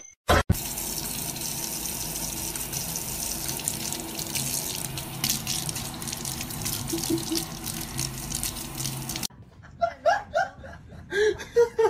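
Tap water running steadily into a kitchen sink, stopping abruptly about nine seconds in. Short bursts of voices follow near the end.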